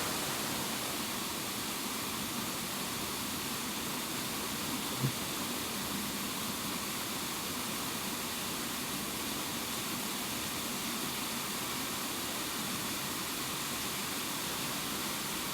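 Small jungle waterfall: a steady rush of falling water, with one brief low thump about five seconds in.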